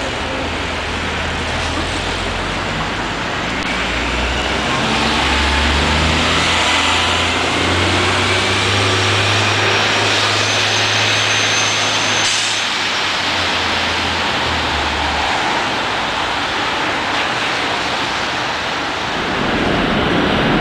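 Diesel city bus engines running with a low, steady hum as buses drive past on a busy street, over steady traffic noise. The engine hum drops away about three quarters of the way in.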